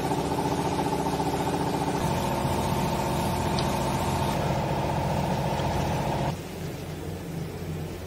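A machine's motor running steadily with a fast, even churn, then cutting off abruptly about six seconds in.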